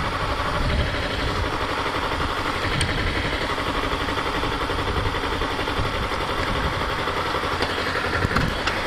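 Kawasaki Ninja 250R's parallel-twin engine running steadily at low revs as the motorcycle rolls slowly away.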